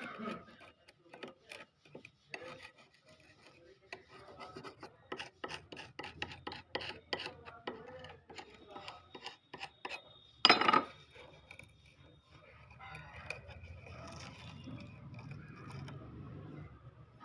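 A hand tool scraping and rubbing on old wood in quick, irregular strokes. About ten seconds in there is one brief loud knock, after which the rubbing turns steadier.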